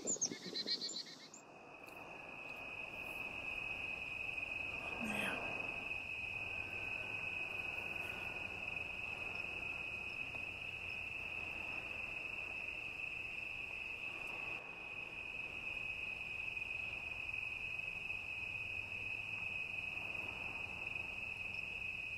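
Night-time insect chorus: one steady, unbroken high-pitched trill that comes in about a second in. A few bird chirps at the very start and a brief low sound about five seconds in.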